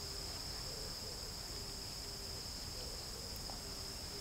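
A steady, high-pitched chorus of crickets chirring, with faint short low notes repeating in the background.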